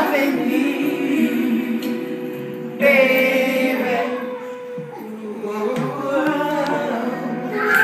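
Music with singing, the voice holding long sustained notes over the accompaniment.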